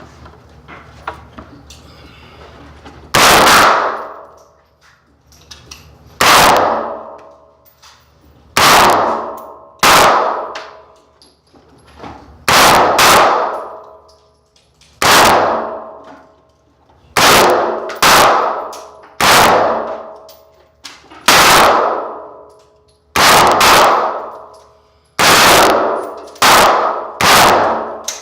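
Semi-automatic AR-15 rifle fired shot by shot, about seventeen shots spaced one to three seconds apart, some in quick pairs. Each shot has a ringing tail that fades over about a second.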